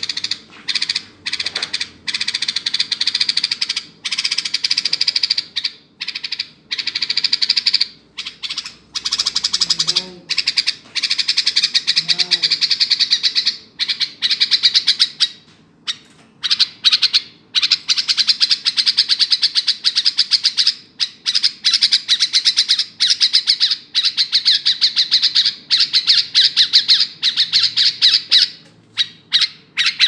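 Caged bulbul chirping loudly in a rapid, almost unbroken chatter of short, high notes, with only brief pauses.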